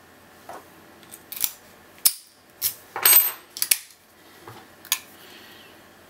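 Brass Vachette Atlas padlock and its key being handled: a run of sharp metallic clicks and clinks as the key is worked in the cylinder and drawn out, loudest in the middle.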